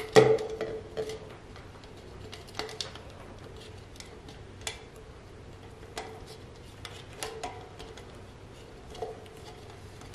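Thin plastic cup clicking and crackling in the hands as rubber bands are threaded through its holes and knotted. There is one sharp click just after the start, then scattered lighter clicks every second or two.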